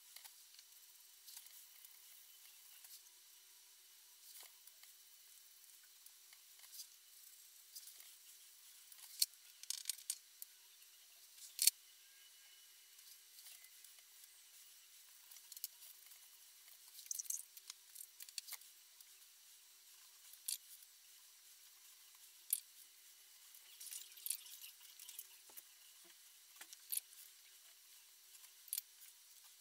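Faint handling of paper: soft scratchy rustles and scattered small clicks and ticks as fingers and a small tool work on a painted sheet, with a couple of sharper ticks about ten and twelve seconds in.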